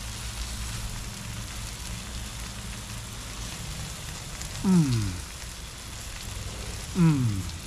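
A man eating gives two falling "mmm" hums of enjoyment, about two seconds apart in the second half, over a steady background hiss and low hum.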